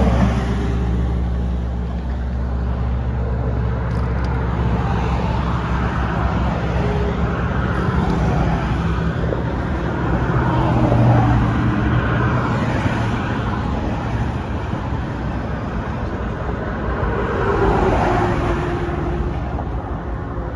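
Road traffic noise: a steady low vehicle rumble with a hum, swelling slightly about halfway through and again near the end.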